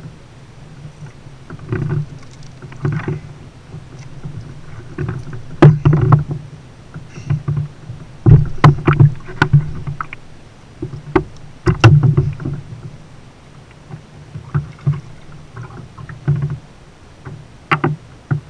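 Irregular hollow thumps and knocks on a kayak hull from a freshly landed blackfin tuna thrashing, coming in clusters with short pauses between.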